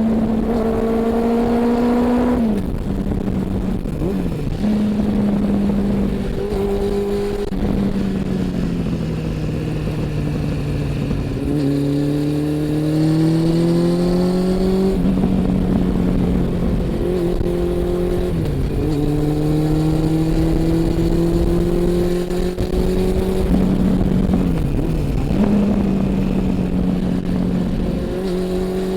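Honda CB400 Super Four's inline-four engine and exhaust on the move, its pitch climbing steadily under throttle and dropping back abruptly several times as the rider shifts or rolls off, with road and wind noise underneath.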